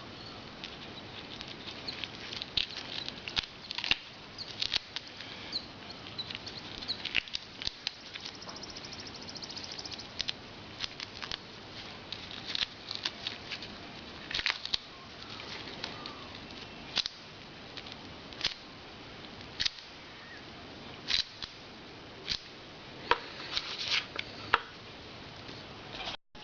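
Hands handling a tubeless tyre plug repair kit: scattered light clicks, taps and rustles of small tools and plug strips being picked up and worked.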